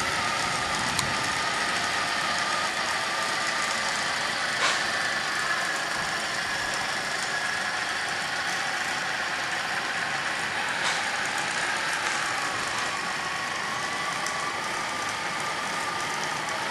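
Engine sound effect from the on-board MP3 sound module of a 1/16-scale RC M1A2 Abrams tank, running steadily as a whine that drifts slightly in pitch, with a few sharp clicks.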